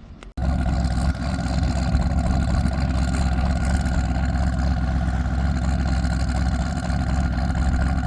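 Race car engine running at a steady, loud idle, with no revving. It starts abruptly a moment in.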